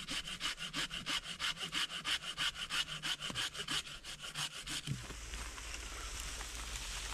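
Hand saw cutting through a sapling's green wood with fast, even strokes, about five a second, stopping about five seconds in as the cut is finished.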